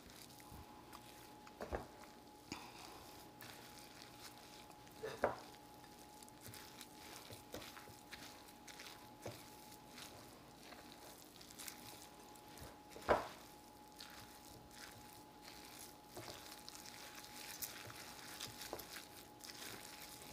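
Faint stirring of grated zucchini through a thick flour-and-butter batter in a glass bowl: a soft, wet crackle with a few light knocks of the utensil against the glass, the loudest about 13 seconds in, over a faint steady hum.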